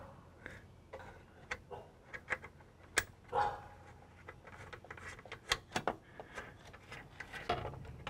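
Scattered small metallic clicks and taps of latch hardware being fitted by hand, a nut and bolt worked into the hood latch bracket in a cramped spot. The clicks come more often towards the end.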